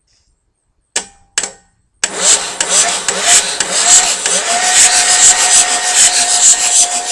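Starter motor cranking a 6.9 litre V8 diesel that has its glow plugs out, spinning it freely without firing: two short bumps of the starter about a second in, then continuous cranking with a whine that rises and then holds steady from about two seconds on. It is being cranked to bleed fuel up to cracked-open injector lines, and it does not catch, with the fuel pump suspected weak.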